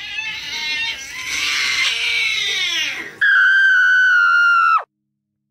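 Meme sound-clip screaming: a wavering, noisy wail that sags in pitch, then a loud, steady, high held scream that drops in pitch and cuts off sharply about three-quarters of the way through, followed by silence.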